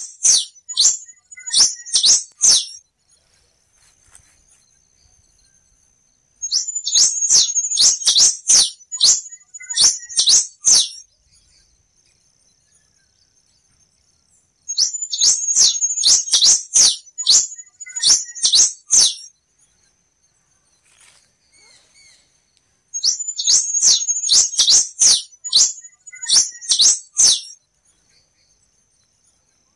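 A black-and-rufous warbling finch (quem-te-vestiu) singing. Four bouts of rapid, high-pitched notes, each about three to four seconds long, come roughly every eight seconds. A faint steady high whine runs between the bouts.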